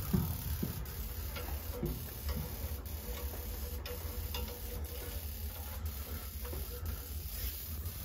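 Weil-McLain steam boiler's burner running with a steady low rumble, freshly fired, with a few light clicks and ticks over it.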